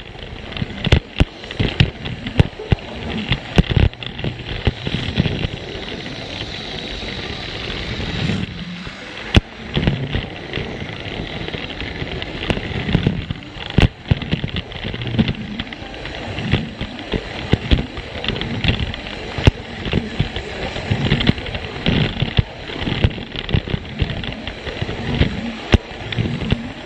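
Plarail toy train running along plastic track, with many irregular clicks and clatters over a steady running noise.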